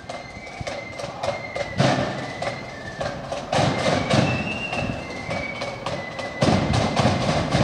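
Marching flute band playing: high held flute notes over steady side-drum strokes, with heavy bass-drum beats. It grows louder as the band draws near.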